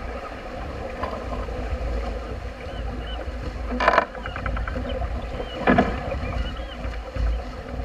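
Water rushing along the hull of a sailing yacht under way, with wind rumbling on the microphone. Two short, louder slaps stand out, one about four seconds in and another nearly two seconds later.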